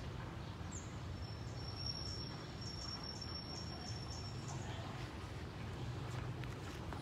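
Outdoor garden ambience: a low, steady rumble, with an insect's thin, high, steady call from about a second in until about four and a half seconds in.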